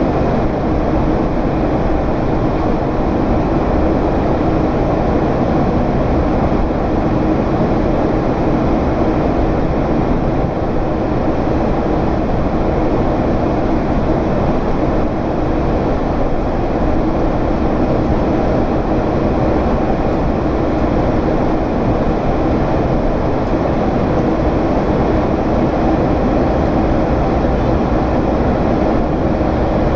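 General Electric CF6 turbofan engines of a Boeing 767 heard from inside the cabin during the climb: a loud, steady deep rumble with airflow noise and a faint steady hum running through it.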